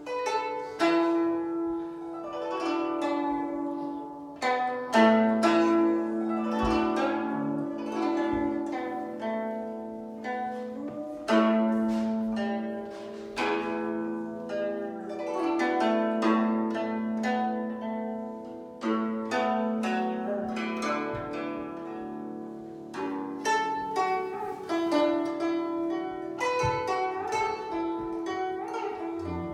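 Solo guzheng (Chinese zither) playing: a run of plucked notes that ring and decay over held lower notes, with a few notes bent in pitch.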